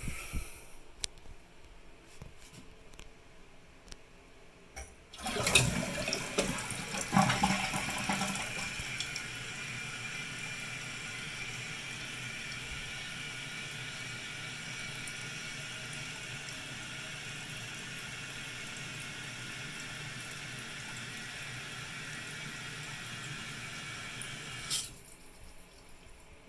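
2010 Toto Drake toilet flushing with its tank open: about five seconds in, a loud rush of water drains from the tank into the bowl, followed by the fill valve's steady hiss as the tank refills, which shuts off abruptly near the end.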